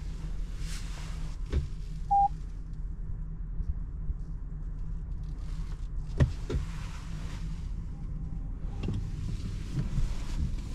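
Inside the cabin of an Opel Corsa-e electric car at standstill: a steady low hum, a couple of sharp clicks from the controls, and one short electronic beep about two seconds in. A fainter beep at the same pitch follows near the end, alongside the change to reverse with the reversing camera on.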